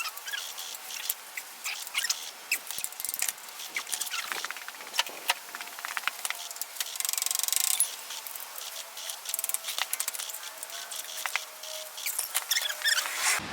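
Hand tools working on a motorcycle's stock exhaust: scattered metallic clicks, clinks and scrapes of wrenches on the clamp, sensor and bolts, with a quick run of rapid, even clicks about seven seconds in.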